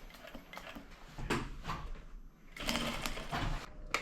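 A sewing machine stitching in short, uneven runs, the longest lasting about a second near the end, as a jacket back is sewn onto an embroidery frame.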